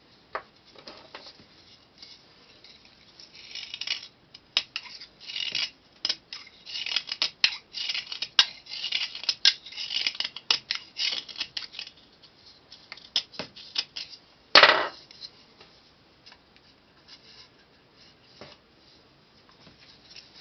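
Quick scraping and cutting strokes of a whittling knife shaving dried La Doll stone clay, coming in clusters and densest in the middle. One louder knock comes about fourteen and a half seconds in.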